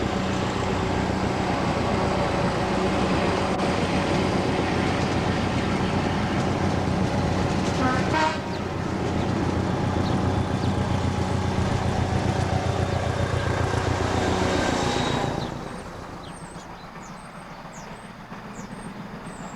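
British Rail diesel locomotive hauling a train past, its engine giving a steady low drone over the noise of the train on the rails. The sound stops abruptly about three-quarters of the way through, leaving a quieter background with faint high chirps.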